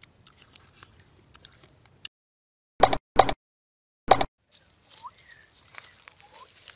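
Three short, loud sound-effect hits over dead silence, from a subscribe-bell animation, after faint ticking of fingers picking food from a shell bowl. Near the end come outdoor ambience, a few short bird chirps and rustling of leaves.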